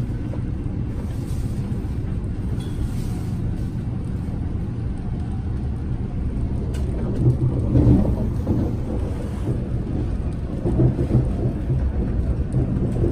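Running noise inside an MTR West Rail Line train carriage in motion: a steady low rumble with a hum, swelling louder about halfway through and again near the end.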